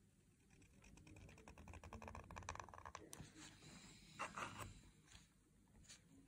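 Faint, rapid scratching of a reed pen (qalam) nib dragging across paper as a calligraphy stroke is drawn, followed by a couple of soft clicks and a short rustle about four seconds in.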